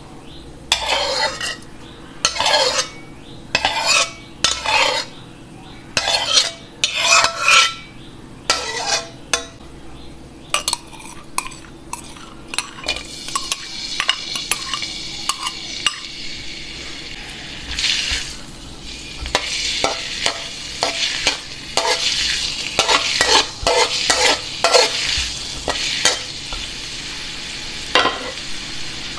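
Scraping strokes from a metal spoon against a glass bowl and a steel wok, roughly one a second. About halfway through, chopped garlic starts sizzling in hot oil in the wok, and the hiss grows stronger while more scraping strokes continue over it.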